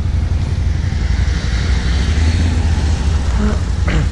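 Can-Am quad bike (ATV) engines idling with a steady low rumble.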